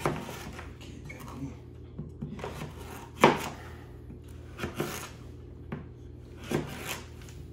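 Kitchen knife cutting butternut squash on a cutting board: irregular knocks of the blade on the board, the loudest about three seconds in.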